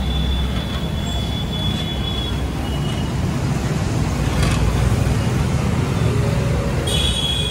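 Puris deep-frying in a large kadhai of hot oil over a gas burner: a steady sizzle over a low rumble, with road traffic mixed in. A high steady tone sounds for about the first two seconds and again near the end.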